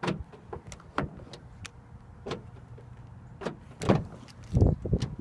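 Sharp clicks and clunks at the Nissan Rogue's driver's door as the Intelligent Key request button on the handle is pressed twice and the power door locks release. Near the end the door handle is pulled and the latch lets go with a heavier thud.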